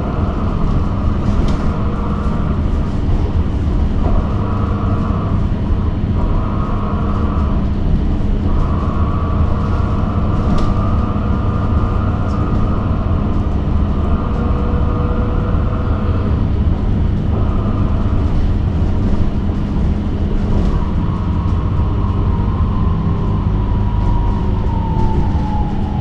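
Electric bus riding, with steady road rumble and an electric drive whine that comes and goes. Near the end the whine falls steadily in pitch as the bus slows.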